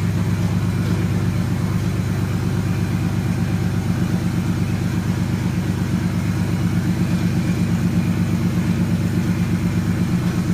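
Toyota 1JZ 2.5-litre inline-six, swapped into a Nissan S13 240SX, idling steadily with an even, rapid pulse. It has just been got running after a no-start and sounds healthy so far.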